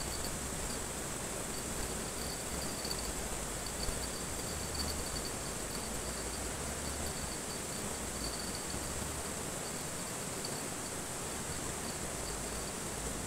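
Insects chirring in a steady high-pitched chorus, with a pulsing trill that comes and goes, over the even rush of a flowing river.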